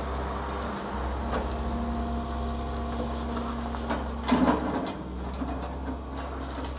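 Excavator running during a house demolition: a steady low engine rumble with a held, even hum, and a short louder clunk about four seconds in.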